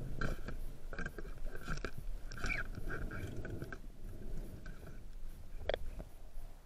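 Underwater handling noise: a run of irregular clicks and crunchy scraping as the diver handles the spear shaft and speargun, dying down after about four seconds, with one sharp click near the end.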